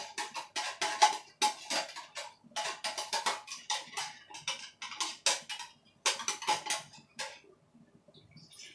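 Metal spoon scraping and knocking against the inside of an opened tin can, scooping out what is left, in quick runs of clicks that stop about seven seconds in.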